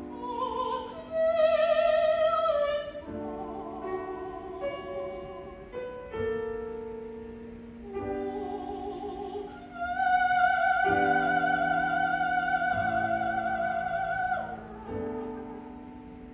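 Classical soprano singing an art song with vibrato over piano accompaniment. Short sung phrases give way to a long held high note about ten seconds in, which slides down and ends near the close while the piano carries on.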